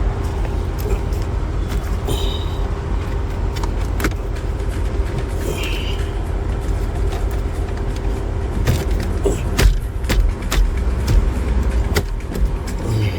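Plastic dashboard trim panels of a Cadillac XTS clicking and knocking as they are pressed back into place, a handful of sharp snaps with the loudest cluster about nine to twelve seconds in. Under them runs the steady low hum of the car.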